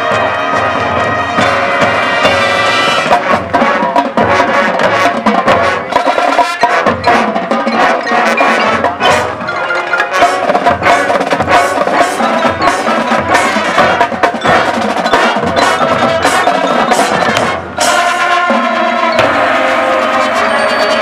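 High school marching band playing, in a busy percussion passage: rapid drum and mallet-percussion strikes over held band chords, with a brief break about three-quarters of the way through.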